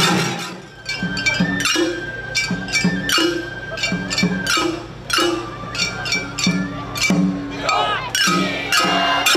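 Shagiri festival music: hand-held brass gongs (surigane) clinking in quick runs, with a held high pipe tone and short low notes underneath.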